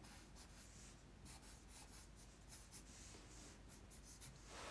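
Faint scratching of a black felt-tip marker on paper, drawing a quick series of short, sketchy strokes for fur lines.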